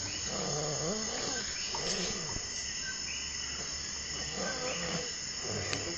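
A sleeper snoring, three drawn-out snores a couple of seconds apart, over a steady high hiss.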